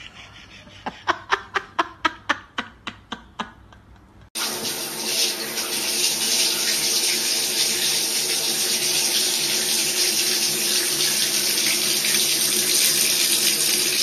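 A quick run of sharp clicks, about three or four a second. Then, about four seconds in, a bathroom sink faucet starts running steadily, its stream splashing into the basin.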